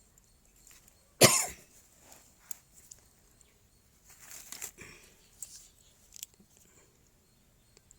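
A single loud cough about a second in, followed by fainter breathy noise and a few light clicks.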